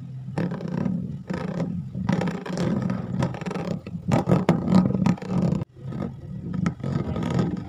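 A hand rubbing across the ribbed plastic lid of a large plastic canister, making the lid and drum sound with a low, rough, roar-like drone. It comes in repeated strokes with short breaks and is loudest around four to five seconds in.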